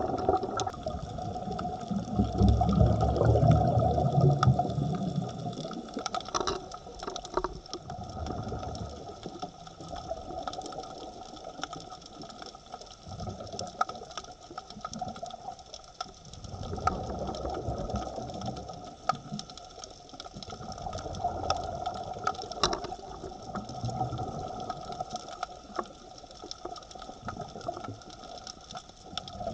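Underwater sound picked up through an action-camera housing: a steady mechanical hum and whine over muffled water noise. A louder low rush of bubbles comes about two to five seconds in, and weaker rumbling swells follow later.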